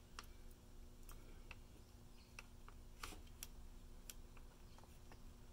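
Faint, irregular clicks of fingers pressing the keypad buttons of a 1981 General Electric 4885 clock radio, over a faint steady hum from the radio. The presses barely register: the owner puts it down to decayed old fabric keeping the little plastic pushers from reaching the contacts.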